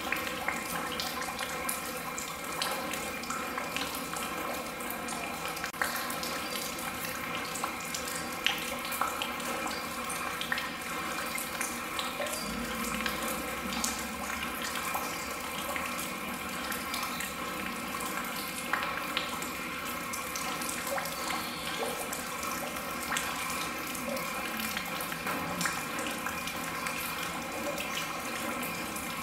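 Artificial rain from an art installation: water falling and splashing steadily, with many scattered sharp drips.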